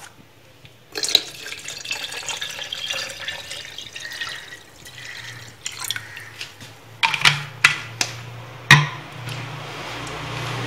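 Water poured from a bottle into a steel jug of strained mango pulp, splashing steadily for several seconds from about a second in. Near the end come a few sharp knocks as containers are handled.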